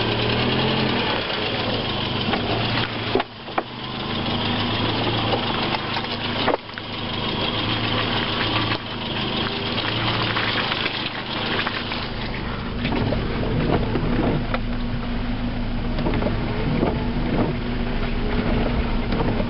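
The 1998 Kia Sportage's 2.0-litre petrol four-cylinder engine running steadily as the SUV drives slowly across wet, grassy off-road ground, with tyre and body noise over it.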